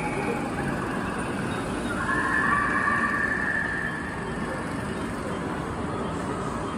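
A horse whinnying once, about two seconds in and lasting roughly two seconds, over a steady background din.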